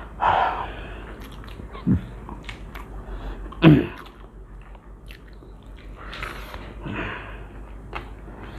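People chewing and eating kacchi biryani: scattered short mouth and eating clicks, with a few brief louder sounds, the loudest about three and a half seconds in.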